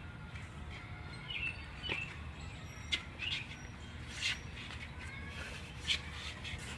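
Outdoor ambience: small birds chirping now and then over a steady low rumble, with a couple of sharp clicks.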